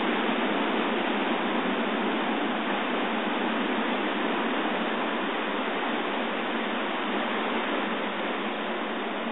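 Surf washing over a lava-rock shoreline: a steady rush of water with no breaks.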